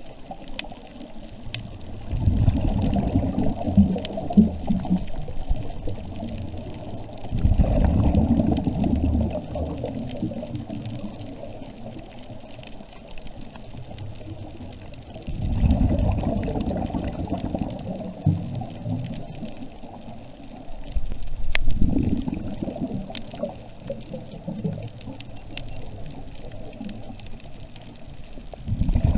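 A scuba diver's exhaled bubbles gurgling out of the regulator underwater, heard four times as low, bubbly bursts of two to three seconds about six seconds apart. Quieter stretches with faint scattered clicks lie between them.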